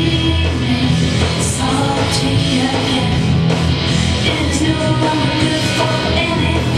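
Upbeat rock-style song with guitar, drums and singing, played loud and steady.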